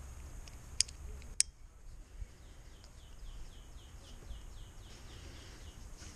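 Two sharp metal clicks from climbing hardware being handled on the rope, close together about a second in. Then a bird in the background repeats short falling notes, about three a second, for a few seconds.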